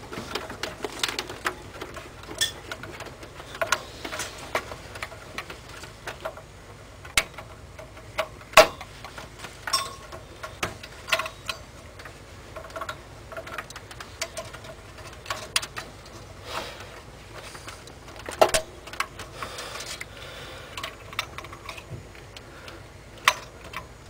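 Irregular clicks and knocks as an LGA775 CPU cooler's plastic push-pins are pressed into the motherboard and fiddled with inside a steel PC case, corner by corner. The loudest click comes about eight and a half seconds in, another about eighteen and a half seconds in.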